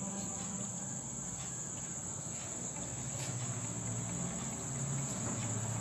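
A cricket trilling steadily on one high note, over faint scraping as a steel spatula stirs chicken pieces in a nonstick frying pan.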